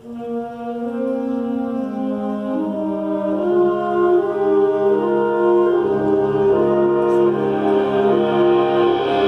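High school concert band of brass, saxophones and other winds starting a piece: a held chord comes in at once, then slow sustained chords move from one to the next, swelling gradually louder and brighter.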